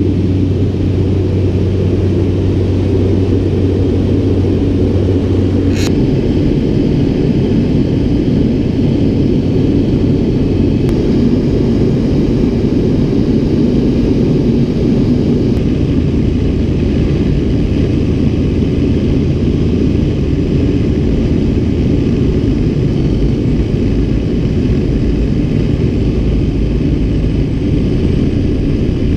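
Single-engine floatplane's engine and propeller droning steadily, heard from inside the cabin.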